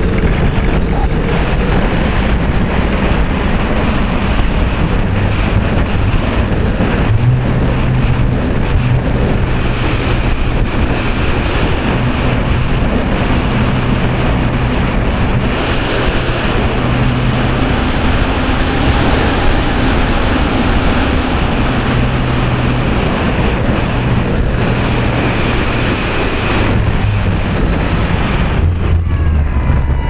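Wind rushing over the onboard camera microphone of an Art-Tech Diamond 2500 electric RC glider in flight, loud and steady, with a low hum from its spinning propeller and electric motor.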